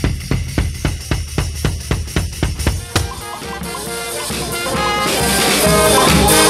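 A steady drum beat, about four to five strikes a second; about three seconds in, a street brass band of saxophones and trumpets comes in and the music grows louder.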